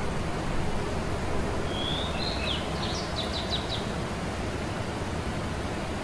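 A small songbird sings one short phrase about two seconds in: a brief whistle followed by a quick run of about six high notes. A steady low background noise runs underneath.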